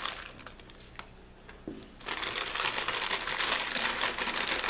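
Crinkling and rattling of broken dry ramen noodles being tipped into the pot, starting about two seconds in after a couple of light clicks.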